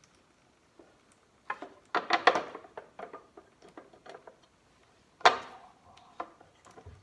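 Metal tools and bolts clinking and clattering as the chaincase cover bolts are taken out. A burst of rattling clinks comes about two seconds in, and one sharp metallic clank with a short ring comes about five seconds in.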